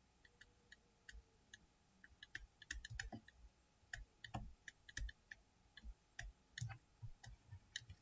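Near silence broken by faint, irregular clicks and taps of a stylus writing numbers on a tablet.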